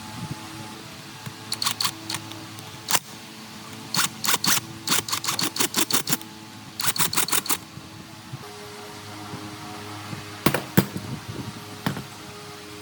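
Quick runs of sharp metallic clicks and taps from hand tools working on metal pump parts, several clicks a second in bursts, with a low steady background music bed.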